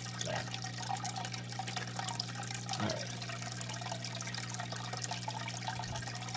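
Aquarium filter returning water into the tank: a steady trickling and splashing over a constant low hum.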